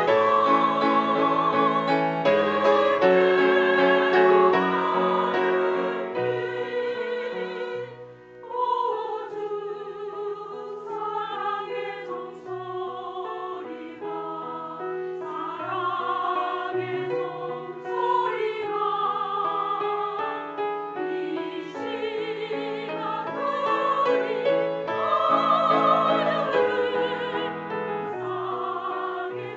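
Women's choir singing a hymn in harmony with piano accompaniment, with vibrato on the held notes. The sound drops briefly about eight seconds in, then a new phrase begins.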